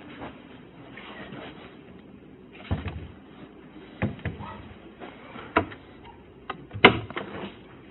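A few scattered knocks and clunks at uneven intervals, the loudest near the end: handling and movement noise as an officer moves about a room during a house search.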